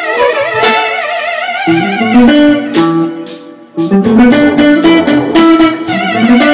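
Improvised jam of electric guitar and keyboard, held notes wavering with wide vibrato over chords. A little after halfway the playing fades down, then comes back in loudly.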